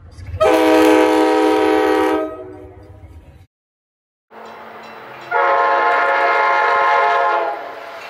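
Nathan K5LA multi-chime air horn on an Amtrak Budd Metroliner cab car, sounded twice, each blast a steady chord lasting about two seconds. The first is sounded with the train at slow speed and the second at track speed, each with the train's low rumble underneath.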